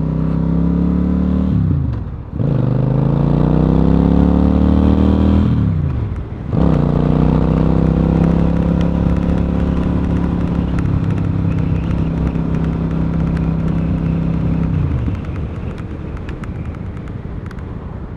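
Suzuki Marauder cruiser motorcycle engine pulling through two upshifts, the revs dropping sharply at each shift about two and six seconds in and climbing again, then holding a steady cruise. Near the end the engine note falls and gets quieter as the throttle is eased off.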